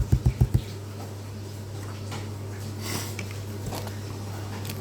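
Handling noise as a package of mine samples is worked with: a quick run of low thuds at the start, then a few faint crackles over a steady low hum.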